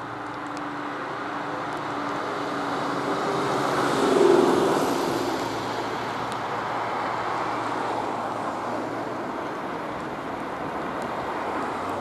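Tobu 8000-series electric train moving over depot track, its running noise building to its loudest about four seconds in, where a short low tone stands out, then easing off.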